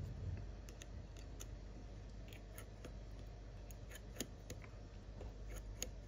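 Faint, irregular small clicks of a precision tri-wing screwdriver working screws out of the metal shield inside an iPhone 12 mini.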